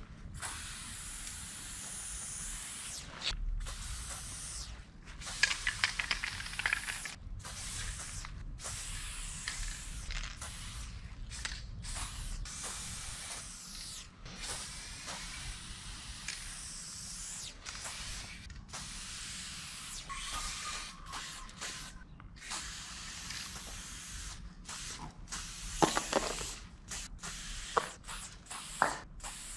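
Aerosol spray paint can hissing in short strokes with brief gaps between them as outline lines are sprayed. The can's mixing ball rattles in quick clicks about six seconds in and again near the end.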